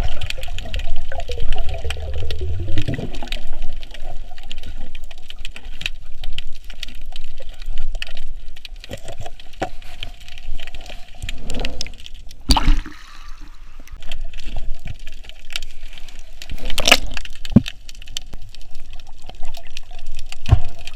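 Water sloshing and bubbling around a camera while snorkeling, with a steady crackle of small sharp clicks and a few louder knocks. Near the start there is a low rumble with a falling tone.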